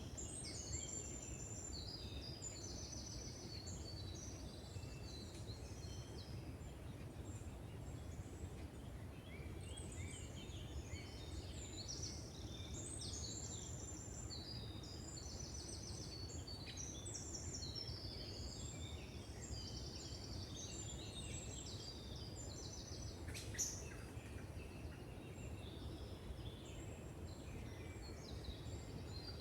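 Several songbirds singing, overlapping phrases of high, rapid repeated notes and trills, over a steady low rumble. A single sharp click comes late on.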